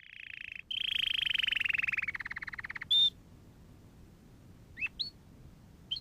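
A songbird singing: a fast, buzzy trill that slides lower after about two seconds, then a short high note and two quick rising chirps near the end.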